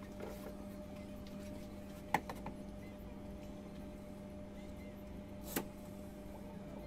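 Hands handling the head of a diode laser engraver, giving two sharp clicks, one about two seconds in and a louder one near the end, over a steady low hum.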